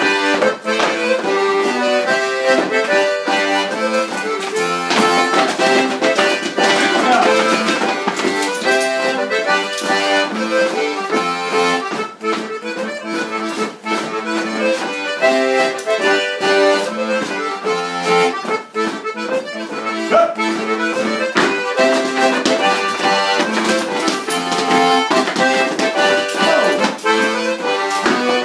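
Lively traditional dance tune accompanying a rapper sword dance, with many sharp clicks and taps from the dancers' hard-soled stepping and swords throughout.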